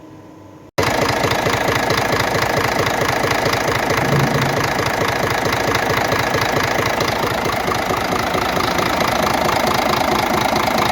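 Scania truck diesel engine running at idle with its valve cover off, with a rapid, steady knocking clatter that comes in suddenly just under a second in. The knock persists with the unit injectors checked and working, so the owner suspects it lies in the camshaft.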